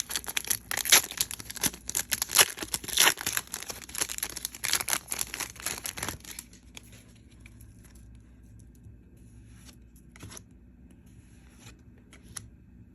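Pokémon trading-card booster pack being torn open, its crinkly wrapper crackling and tearing in a dense run of bursts for about six seconds. After that there are only a few faint clicks and rustles of handling.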